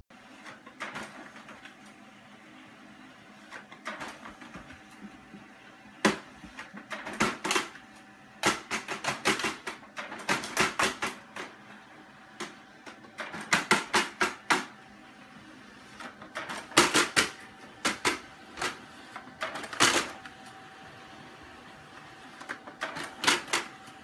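Multifunction printer printing: a steady hum broken by repeated runs of rapid clicking and clatter as sheets feed through, in bursts a second or two long every few seconds from about six seconds in.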